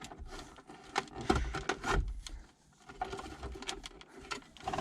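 Irregular knocks, clicks and scraping as a Ripspeed DV740 touch-screen radio is pushed into a car's dashboard slot, a tight fit with the cables behind it.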